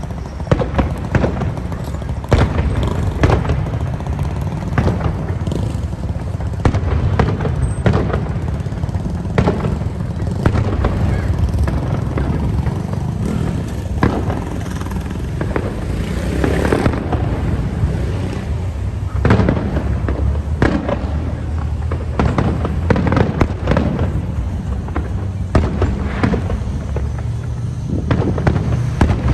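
Fireworks display: a rapid, irregular series of aerial shell bursts and bangs, several a second, over a continuous low rumble.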